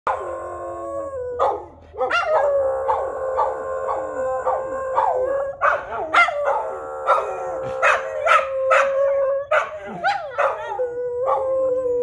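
Two dogs howling, yipping and barking along with a tornado siren. The siren holds one steady wailing pitch, and the dogs' short howls, each falling in pitch, come over it again and again.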